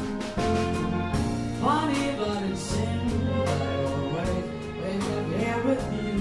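Jazz band with strings playing an instrumental passage: drums, bass and piano under a lead melody line that slides and bends in pitch, coming in about a second and a half in.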